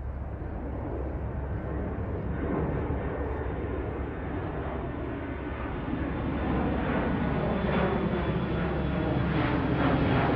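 Aircraft engine drone, a steady rumble that grows gradually louder.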